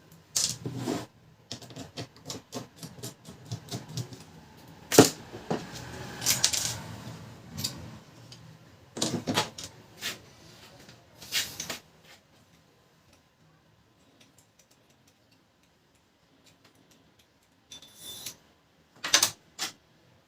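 Irregular clicks, taps and knocks of plastic and metal printer parts being handled and taken apart from a Pantum M7102DW laser printer's fuser unit. They come thick for the first half, stop for a few seconds, then a few more clicks come near the end.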